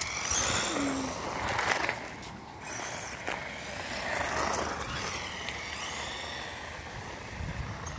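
Battery-powered RC monster truck driving on rough asphalt: its electric motor whines, sliding up and down in pitch as it speeds up and slows, over the steady rumble of its tyres rolling on the pavement. Louder in the first two seconds.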